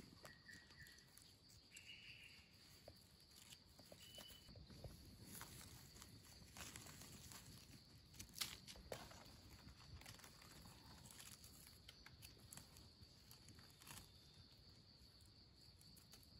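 Near silence: faint outdoor ambience with a few soft clicks and rustles of a small knife trimming freshly picked wild mushrooms among dry leaves.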